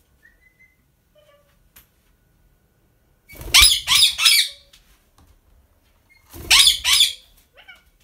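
Indian ringneck parakeet screeching: a quick run of three loud, harsh calls about three seconds in and two more about a second and a half later, with a few soft short chirps in between.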